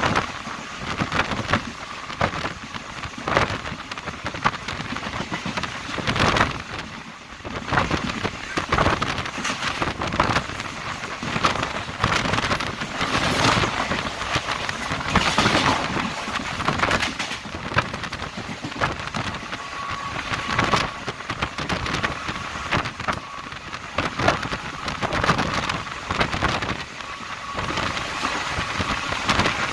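Diesel-electric multiple unit (DEMU) train running at speed: a continuous rattling clatter of wheels and coaches, with many irregular sharp knocks over a rough rushing noise.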